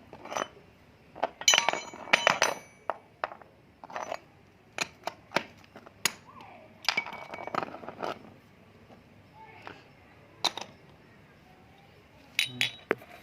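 Metal hand tools clinking and clicking in a string of irregular sharp strikes, a few ringing briefly: an L-key and hardware being handled to start undoing a motorcycle's exhaust silencer mounting.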